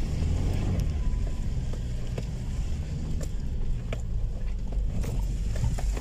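A vehicle's engine running low and steady while it moves over rough ground, with scattered knocks and rattles.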